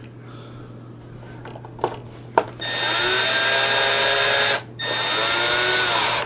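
Cordless drill driving screws: two runs of the motor, about two seconds and a second and a half long with a brief stop between, each spinning up and winding down. A couple of light clicks come just before.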